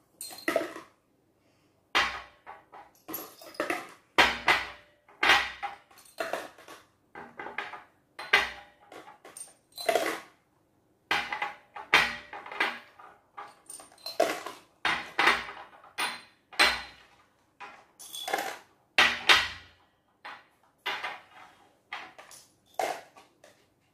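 Glass jars and clear plastic cups clinking and knocking on a tabletop as small pieces are tipped and dropped into them. The clatters come irregularly, about one or two a second, and some carry a brief glassy ring.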